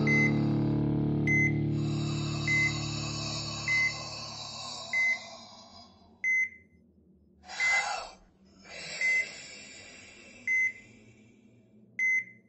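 Hospital patient monitor beeping at one steady pitch, about once every 1.3 seconds and slowing slightly, while the last sustained chord of the music fades away over the first couple of seconds. A brief rush of noise comes about two-thirds of the way through.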